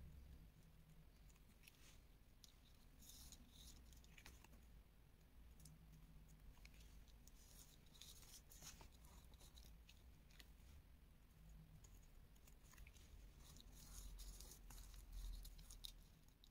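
Near silence, with faint scattered rustles and light clicks of card stock and a clear plastic disc being handled and pressed together as they are glued.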